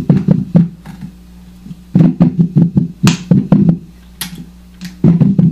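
Homemade hand-cranked stepper-motor noise instrument played clean through an amplifier: the raw electrical pulses of the motors, a rapid train of clicking, buzzing pulses that comes in three bursts as the crank is turned, with short pauses between. The loudest burst starts near the end.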